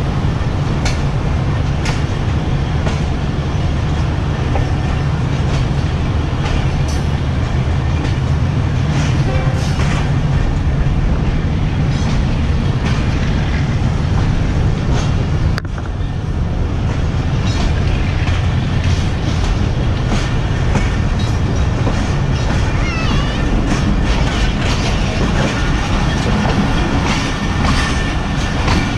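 Passenger train running on the line: a steady rumble of the coaches with the wheels clicking over rail joints. The loudness dips briefly about halfway.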